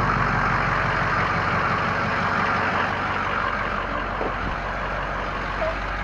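Ford F-250 Super Duty diesel engine idling steadily.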